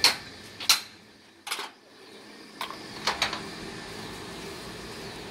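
Sharp knocks and clacks of oyster shells being cracked with a hammer and handled on a wooden slatted table, about six hard hits spread over the first three and a half seconds.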